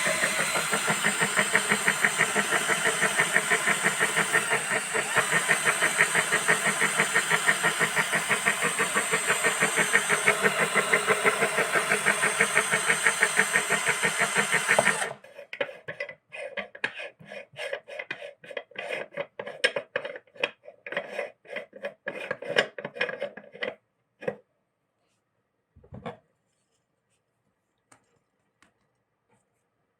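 Electric meat grinder running with a steady motor hum and a fast rhythmic pulse as it churns, then switched off suddenly about halfway through. A run of light knocks and clatters follows, then a few scattered clicks.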